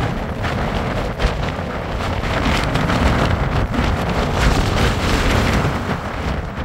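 Strong wind buffeting the microphone: a loud, steady rumble and hiss.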